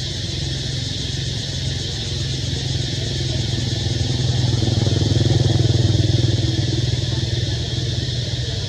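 Engine of a motor vehicle running off-screen, a low hum that grows louder from about four seconds in and eases again near the end, over a steady high hiss.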